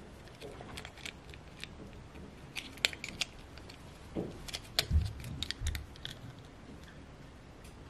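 Small plastic doll being handled while a soft plastic dress is pushed onto it: scattered sharp plastic clicks and light rustling, with a couple of dull knocks about five seconds in.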